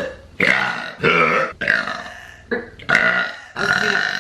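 A young woman burping over and over, several burps in quick succession.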